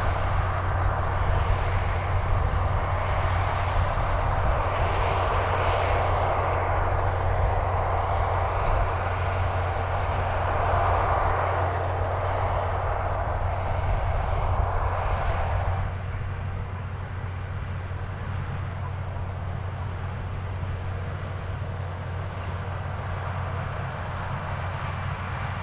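International Harvester 1460 combine running in a corn field: a steady low engine drone with a rushing noise above it. The rushing part drops away and the whole sound gets quieter about two-thirds of the way through.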